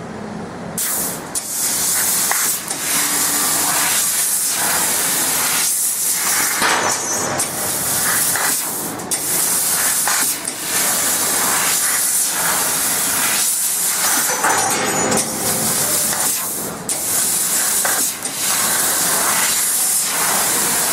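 Fiber laser cutting machine cutting 1 mm stainless steel: a loud, steady hiss of assist gas jetting from the cutting-head nozzle, cutting off for a moment every second or two between cuts.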